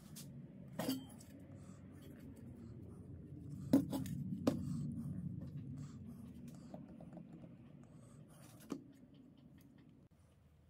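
A few sharp clinks and knocks of hard objects being handled, over a low steady rumble; the loudest two come close together near the middle.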